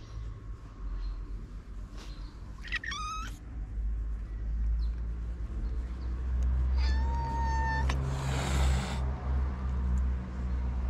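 Stray cats meowing twice: a short, bending meow about three seconds in, then a longer, steadier meow about seven seconds in. A brief rushing noise follows the second meow, all over a low rumble.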